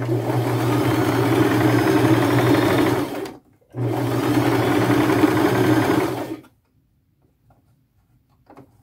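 Brother electric sewing machine running a wide zigzag stitch through lace, in two steady runs of about three seconds each with a brief stop between them. It stops about six and a half seconds in, leaving only a few faint clicks near the end.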